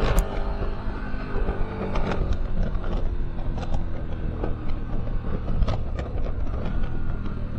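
KTM 1290 Super Adventure R's V-twin engine running under way, its note slowly dropping, under a heavy low rumble of wind on the camera microphone. A few sharp ticks come and go, the strongest just after the start.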